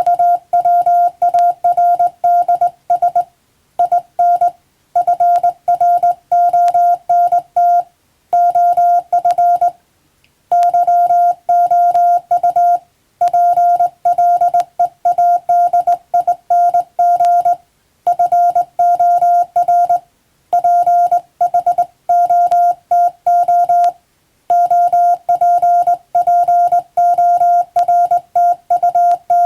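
Morse code (CW) tone of about 700 Hz, keyed on and off in quick dots and dashes at a steady sending speed, with short pauses every few seconds between groups.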